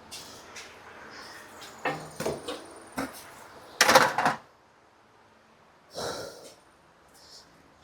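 Handling noises: a few knocks and short scrapes of things being moved about, the loudest a scrape about four seconds in and another about six seconds in.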